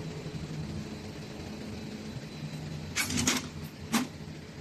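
Steady low hum of factory machinery. About three seconds in comes a short burst of clattering, then a single sharp knock about a second later.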